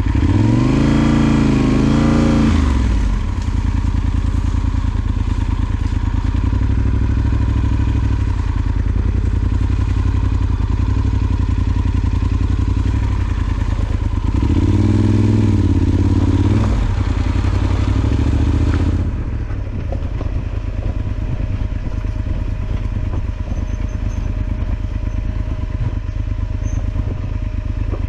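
Yamaha Super Ténéré XT1200Z's parallel-twin engine running just after being started, revved up and down twice: in the first three seconds and again around fifteen seconds in. It settles quieter at about nineteen seconds.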